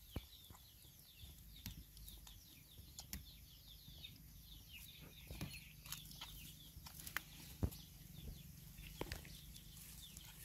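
Faint, rapid high chirping of birds, with scattered clicks and rustles, the sharpest about seven and a half seconds in.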